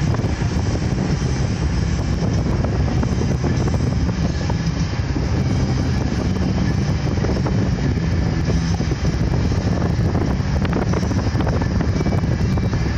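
1986 Toyota pickup truck driving steadily, its engine running through a straight-pipe exhaust with no catalytic converter, mixed with road noise and wind buffeting the microphone.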